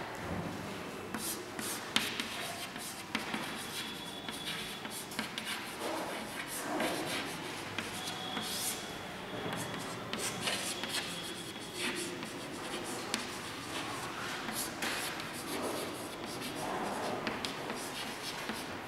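Chalk writing on a chalkboard: irregular scratching strokes with light taps as words are written out, and a few brief high squeaks.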